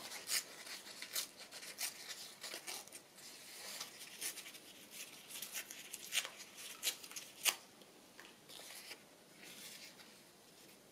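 A piece of paper being handled and trimmed down by hand: a run of short, crisp crackles and rips that thins out after about eight seconds.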